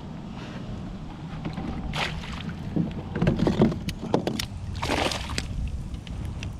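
Water splashing and sloshing around a kayak, with two louder splashes about two and five seconds in and a scatter of short clicks and knocks.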